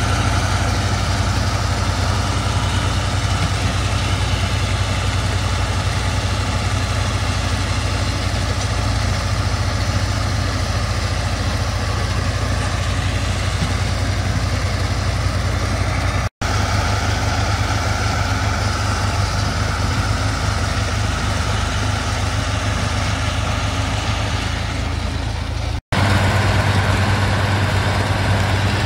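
Case tractor engine running steadily under load while it pulls and powers a small square baler, broken twice by a very brief gap.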